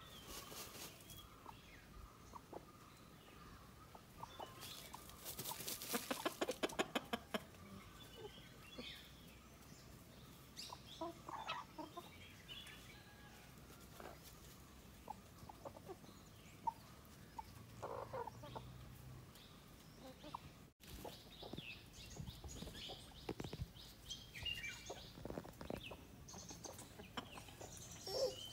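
Backyard hens and a rooster clucking softly with scattered short calls. About five seconds in comes the loudest part, a quick run of rapid strokes lasting about two seconds.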